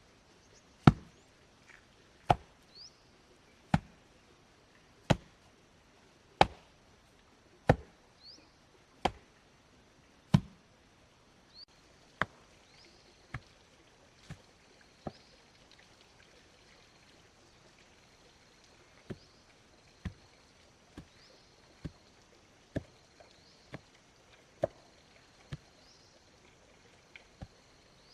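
Chopping blows from a hand tool, one sharp stroke about every second and a half, loud and regular for the first ten seconds, then softer and more irregular.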